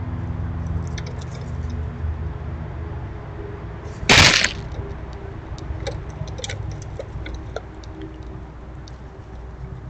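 Squirrels dashing off across ground littered with sunflower-seed hulls: a sudden loud burst of rustling about four seconds in, then scattered light clicks and crackles as they move about and feed.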